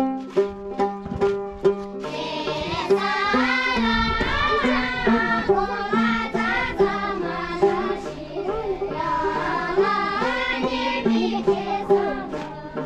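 Folk song: a plucked string instrument plays a quick repeating pattern, then singing voices come in over it about two seconds in. The plucked notes come back to the fore near the end.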